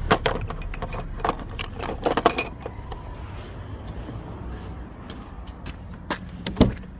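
Small metal objects clinking and rattling in a run of quick light clicks with a thin metallic ring, busiest in the first couple of seconds, then sparser, followed by a single heavier thud near the end.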